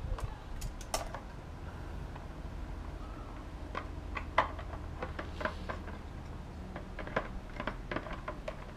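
Scattered light clicks and taps of motorcycle clutch plates and small metal parts being handled, coming closer together in the second half, with the sharpest tap about halfway through, over a faint steady low hum.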